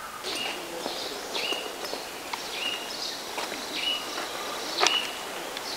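A bird giving short chirps, repeated about once a second, over outdoor ambience. A single sharp click comes a little before the end.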